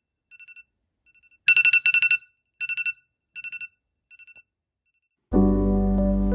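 Phone alarm beeping in quick groups of four, loudest about a second and a half in and then fading away. At about five seconds soft keyboard music with held chords starts.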